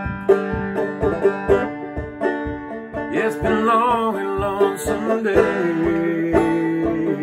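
Banjo being picked in a steady rhythm, playing a folky tune; from about three seconds in a voice sings along without words, ending on a long held note.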